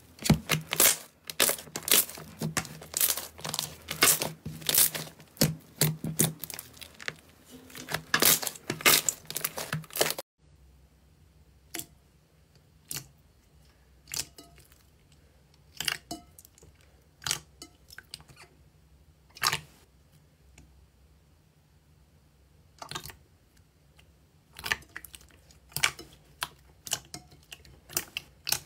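Thick purple slime being stretched and pulled, giving a dense run of crackling, snapping clicks. After an abrupt stop about ten seconds in, glossy green jelly slime being poked and pressed in a glass bowl gives sparse single pops and squelches a second or two apart, coming faster near the end.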